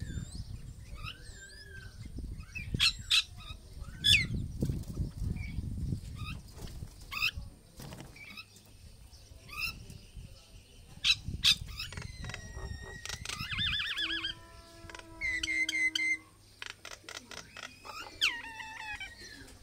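Mynas and bulbuls calling in an aviary: a string of whistles and quick rising and falling notes, warbling trills, a held note, and a fast run of clicks, over a low rumble in parts.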